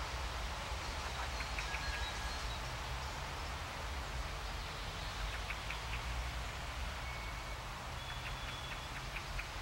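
Steady low rumble and hiss of open-air ambience, with a few short, high bird chirps scattered through it.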